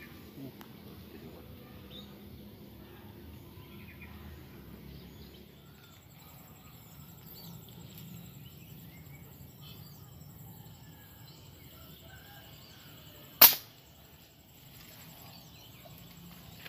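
A fish speargun fired once into the water: a single sharp, loud snap about thirteen seconds in, over faint outdoor background with insects and small chirps.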